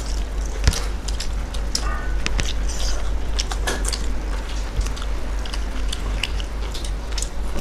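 Eating sounds: chewing and lip smacks as mouthfuls of rice and chicken curry are eaten by hand, with fingers mixing rice on the plates, heard as a string of small irregular clicks. A steady low hum runs underneath.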